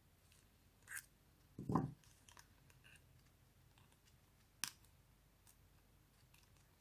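Quiet handling of a small metal brooch pin on the back of a ribbon tie: a few sharp small clicks and one dull thump, about a second apart at first, then a single click past the middle.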